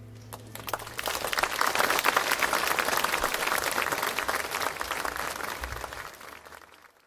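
Audience applauding as the song's last note dies away. The clapping swells about a second in and fades out near the end.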